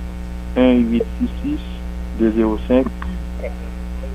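Steady electrical mains hum on the recording, with two short bits of a man's voice over it, about half a second in and again about two seconds in.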